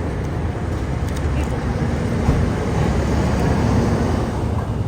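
Steady rumble of passing road traffic, swelling slightly near the middle as a vehicle goes by.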